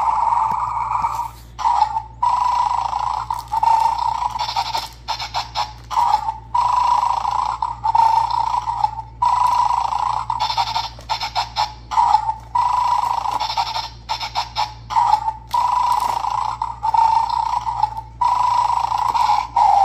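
Bad Dog bulldog toy game's small speaker giving out a buzzy electronic tone in stretches of one to two seconds with short breaks between. Small clicks sound in the gaps as a toy bone and tongs pick at the candy packet in the plastic bowl.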